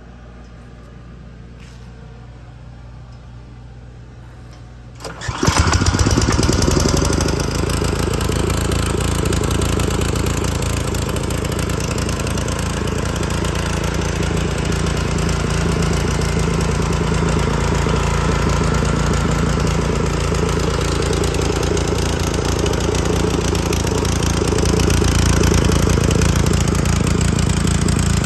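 Gasoline engine of a Mi-T-M Tradeworks 2600 direct-drive pressure washer starting about five seconds in, catching abruptly, then running steadily at a constant speed.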